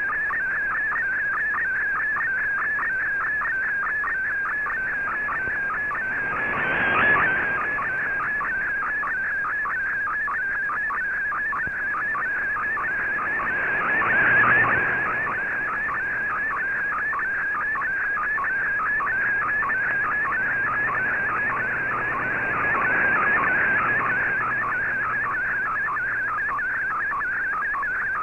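Digital picture transmission from the Shortwave Radiogram broadcast, received in AM on an Icom IC-R8600: a steady whistling tone that warbles and flutters rapidly as the image is sent line by line. Three times, about 7, 14 and 23 seconds in, a rush of hiss swells up under it and fades away.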